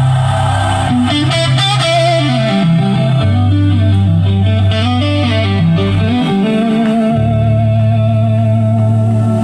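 Guitar music: a quick melody stepping up and down over long held low bass notes.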